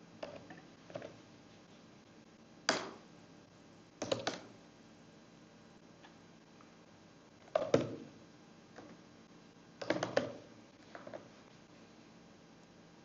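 Computer keyboard keystrokes: scattered single key presses and short runs of two or three, loudest in four clusters a few seconds apart.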